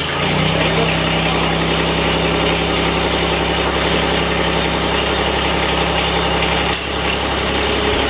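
Mahindra eMax 20S compact tractor's three-cylinder diesel engine, just started after a ten-second glow-plug preheat, catching and settling into a steady idle.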